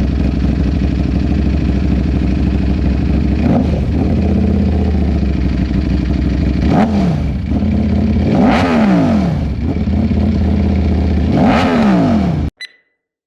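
Sport motorcycle engine idling, blipped four times to a brief high rev that falls back to idle each time. Near the end the sound cuts off suddenly, followed by a short high beep.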